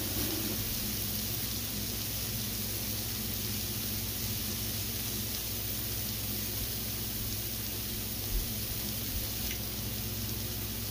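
Steady sizzling hiss from a hot grill plate of grilled beef, over a low steady hum.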